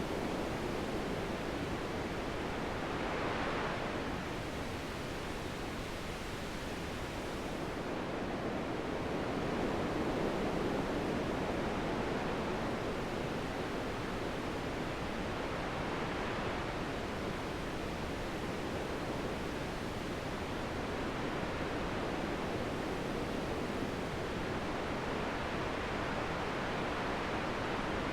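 Wind blowing in a continuous rush, swelling and easing every several seconds.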